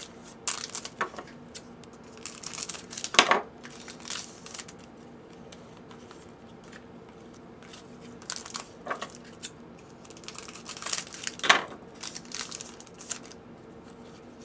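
Foil trading-card pack wrappers crinkling and tearing as hands open 2009-10 Upper Deck SPx hockey packs, in irregular bursts, with the two loudest rips about three seconds in and near eleven and a half seconds.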